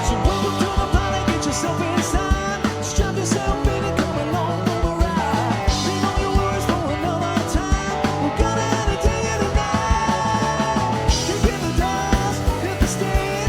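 Live country band playing a song: a steady drum beat under bass and guitars, with a lead melody that bends in pitch.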